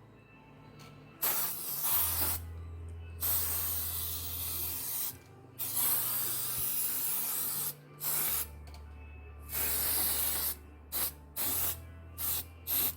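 Repeated bursts of spraying hiss, some brief and some two to three seconds long, stopping and starting about eight times, with a low steady hum underneath that switches on and off.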